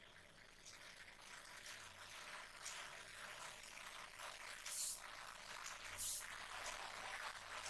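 Faint rustling and light handling noises from hands working on printer parts and cables, with two brief, slightly louder rustles about five and six seconds in.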